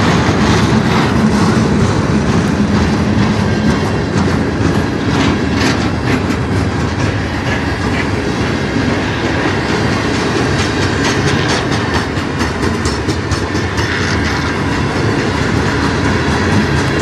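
Freight train boxcars and covered hopper cars rolling past: a steady rumble of steel wheels on rail, with clickety-clack over the rail joints that comes thickest in the last few seconds.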